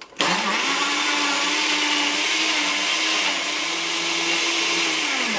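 Countertop blender with a glass jug running on high, whirring steadily as it purées strawberries, milk, yogurt and ice cream into a smoothie. It starts suddenly just after the beginning, spins up quickly, and begins to wind down right at the end.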